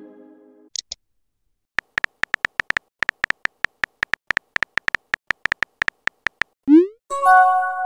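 Texting-app sound effects: a chime fading out, then a run of quick identical typing clicks, several a second, as a message is typed. Near the end come a short rising whoosh and a bright held chime as the message is sent.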